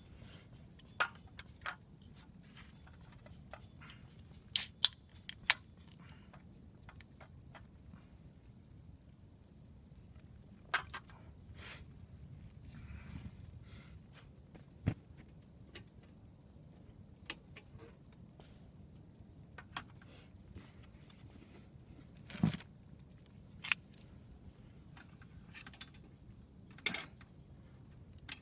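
Crickets trilling steadily at a high pitch, with scattered sharp clicks and knocks now and then, the loudest at about five, eleven, twenty-two, twenty-four and twenty-seven seconds in.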